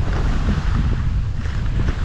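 Wind buffeting the microphone: a steady loud low rumble with a rushing hiss above it.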